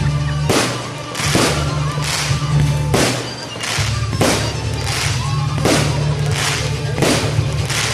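Loud music with a steady bass line and a thumping beat about every two-thirds of a second.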